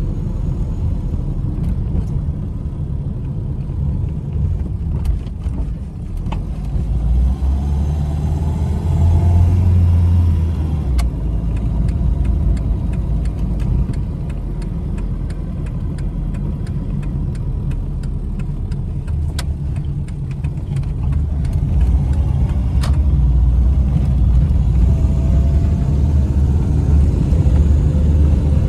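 Dodge Neon Sport Coupé's four-cylinder engine and road noise heard from inside the cabin while driving slowly along a street. The engine pulls harder twice, about a quarter of the way in and again for the last few seconds, with a faint rising whine each time.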